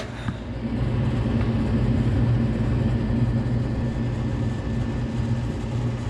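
Gas furnace's draft inducer motor starting up and running: a steady low motor hum with rushing air, building over about the first second and then holding steady. This is the first stage of the furnace's start-up sequence, before the pressure switch proves and the igniter comes on.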